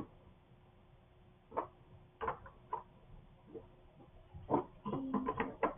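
Lego chess pieces being set down on the plastic brick board: scattered short plastic clicks and knocks, a few at first, then a quick run of them near the end.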